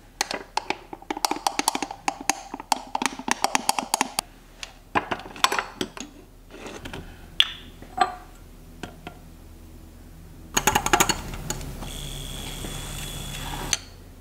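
A metal spoon stirring briskly in a glass of espresso, a fast run of ringing clinks. Then scattered clinks and knocks as ice cubes are spooned into the glass. About ten seconds in, a small electric frother whirs steadily for about three seconds, whipping the cream topping, and cuts off sharply.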